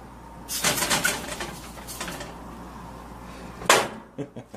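A spatula is set down on an enamel electric stovetop with one sharp clack near the end, followed by a few small clicks. A longer rasping kitchen-handling noise comes about half a second in.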